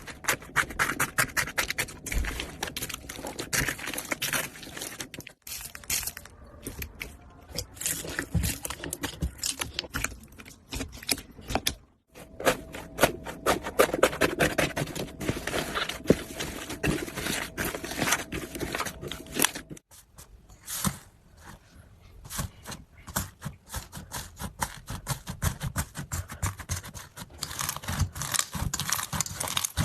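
Slime being pressed and stretched by hand: dense, rapid crackling and clicking. Short breaks about 5, 12 and 20 seconds in, where the sound changes.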